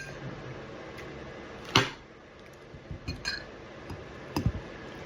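Fork clinking against a plate or bowl a few times, with the loudest clink about two seconds in and a sharp tap with a dull knock near the end.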